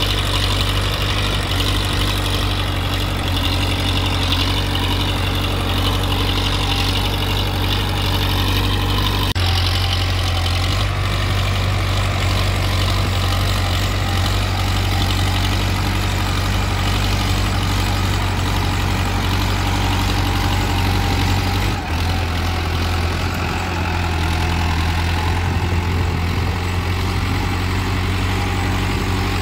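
Powertrac Euro 55 Next tractor's diesel engine running steadily under load while pulling a tyne cultivator through soil. The engine note changes abruptly twice, about a third and three-quarters of the way through.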